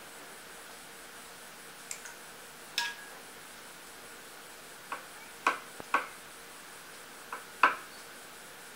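A paintbrush clicking and tapping against a plastic watercolour palette as paint is mixed: about eight light, sharp clinks, scattered and mostly in the second half, the loudest near the end.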